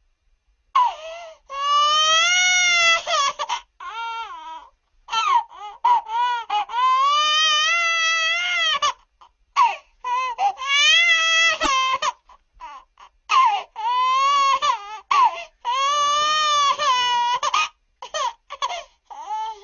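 A baby crying: a series of long cries, each rising and then falling in pitch, broken by short gaps and quick catches of breath.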